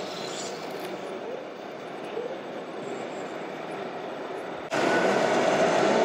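Steady mechanical rumble and hum of radio-controlled model trucks running on an indoor course, with hall ambience. About three-quarters of the way through it jumps abruptly louder, and a steady drone comes in.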